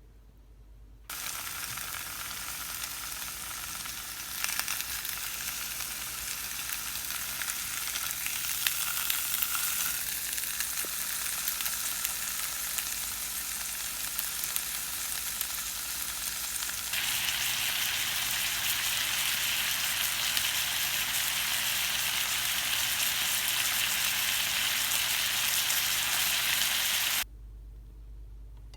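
Food sizzling and crackling as it fries in a hot pan. The sizzle starts abruptly about a second in, jumps in character twice, and cuts off abruptly near the end.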